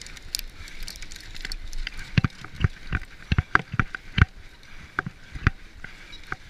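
Santa Cruz V10 downhill mountain bike running fast over a rough dirt trail, with a steady rush of tyre and wind noise. A string of sharp clunks and rattles from the bike over bumps comes between about two and five and a half seconds in.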